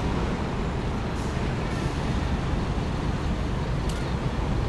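Steady road traffic noise: a constant rumble of passing cars and buses.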